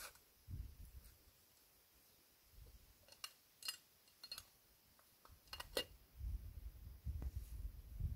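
Light metallic clinks, about five between three and six seconds in, as the pot and kettle of a Trangia camp stove are handled. A low rumble follows near the end.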